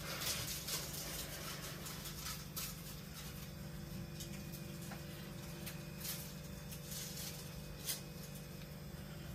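A steady low hum with faint, irregular clicks and rustles scattered over it, about half a dozen in all.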